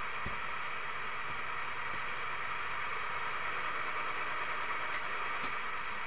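Steady static hiss from a Cobra 25 LTD Classic CB radio receiver, with a few faint clicks about five seconds in.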